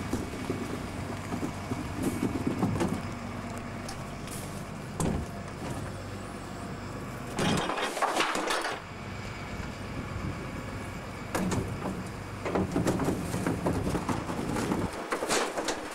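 Norba RL200 rear-loader garbage truck's compactor at work: a steady hum of the engine and hydraulics, with loud clattering and knocks from the packer mechanism about halfway through and again near the end.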